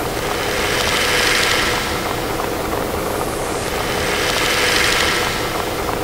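Experimental noise music: a dense wash of noise over a faint steady hum, with a brighter whooshing swell that rises and fades twice, about three and a half seconds apart.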